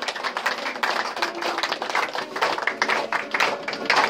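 A roomful of people clapping their hands in applause.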